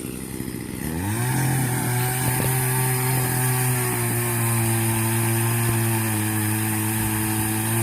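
Small gasoline engine of a handheld landscaping power tool, such as a string trimmer or chainsaw, revving up about a second in and held at a steady high speed, then easing off at the very end.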